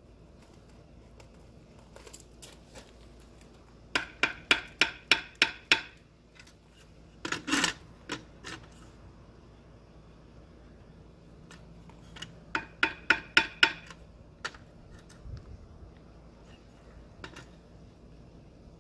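A mason's trowel tapping a freshly laid concrete block down into its mortar bed to bring it level: a quick run of about nine ringing metallic taps, a scrape, then a second run of about seven taps.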